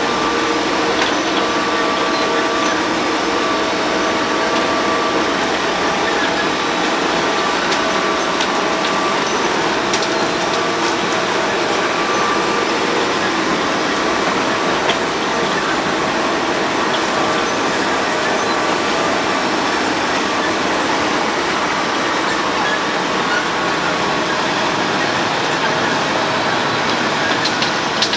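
Road planer (cold milling machine) running steadily as it mills the road surface: a loud, even din with a few steady tones running through it.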